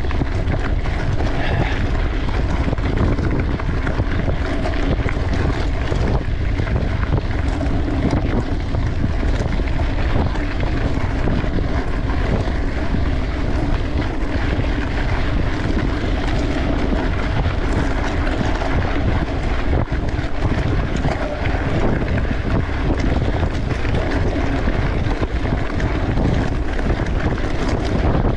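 Steady wind rush over the microphone with rumble from a mountain bike riding a sandy forest trail at race pace.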